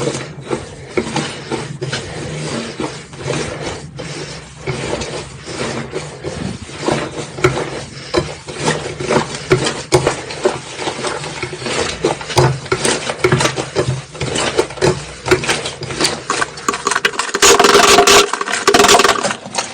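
Slime being squeezed and pressed by hand, giving a dense, irregular run of sticky clicks and crackles, with a louder rasping burst near the end.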